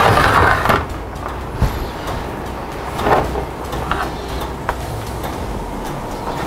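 A metal baking tray of baked choux puffs being slid out of the oven and handled: a scraping rush at the start and another about three seconds in, with a few sharp clunks, over a steady low hum.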